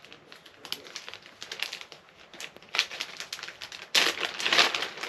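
Clear plastic bag crinkling and crackling as it is handled and pulled open, in scattered crackles at first and growing into louder, denser crinkling about four seconds in.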